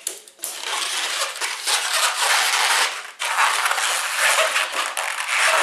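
Inflated latex modelling balloon (a short piece of 260) being twisted into a small loop by hand, the latex rubbing against itself and the fingers in a steady rubbing noise that breaks off briefly about three seconds in.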